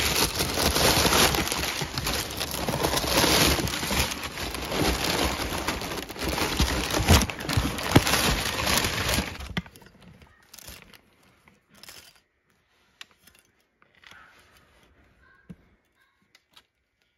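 Crumpled brown kraft packing paper crinkling and rustling loudly as hands dig through it in a cardboard box. It stops about nine and a half seconds in, leaving only a few faint rustles and clicks.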